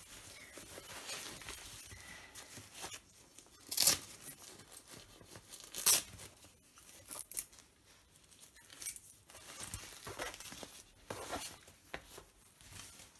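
Disposable nappy being put on and fastened: crinkling and rustling of the nappy, with two sharp ripping sounds about four and six seconds in as its fastening tabs are pulled open. Softer rustling of fabric follows.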